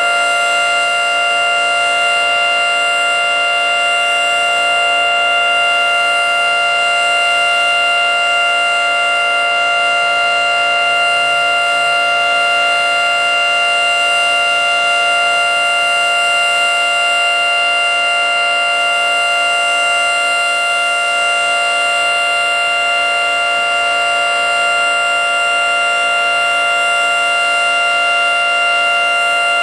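Federal Signal 3T22 three-tone outdoor warning siren sounding its steady Alert signal: several tones held together as one chord at a constant pitch and level.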